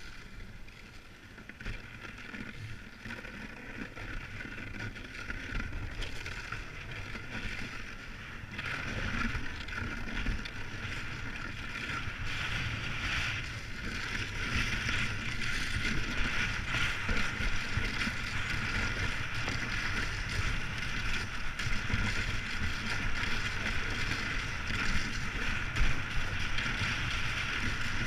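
Steady hiss of a windski sliding over snow, with wind rumbling on the microphone. It grows louder through the first half, with a step up about a third of the way in.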